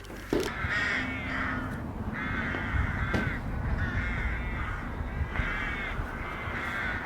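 Crows cawing, about six calls in a row, each under a second long.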